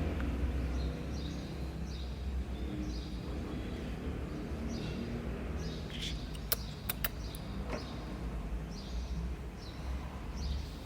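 Short high bird chirps repeated about once a second over a steady low rumble, with a few sharp clicks about six to seven seconds in.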